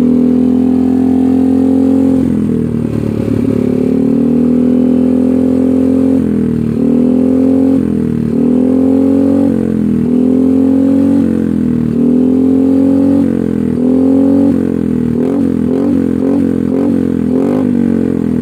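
Yamaha NMAX 155 scooter's single-cylinder four-stroke engine revved hard through an aftermarket racing exhaust, a stainless muffler with a starfruit-type baffle and no dB killer. It holds high revs for the first several seconds, then gives a series of rising revs, and a run of quick short throttle blips near the end.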